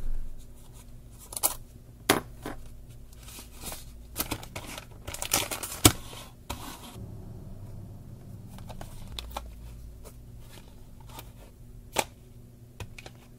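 Small spiral-bound notebooks being handled on a wooden tabletop: sharp taps and clicks as they are picked up and set down, with crisp rustling of plastic wrappers, busiest around five to six seconds in and sparser near the end.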